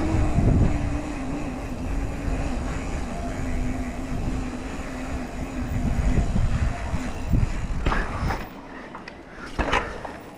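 Wind rushing over the microphone and knobby tyres rolling at speed on a downhill mountain bike, with a steady hum that stops about six seconds in. Near the end it quietens, with a few sharp clicks and knocks as the bike slows.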